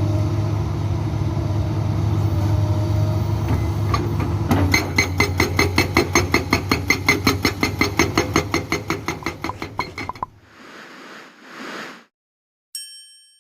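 Komatsu PC200-8 excavator's diesel engine running steadily, then a Soosan SB81 hydraulic breaker hammering rock in a rapid even beat of about six blows a second, from about four and a half seconds in until it cuts off suddenly. Near the end comes a short ringing chime.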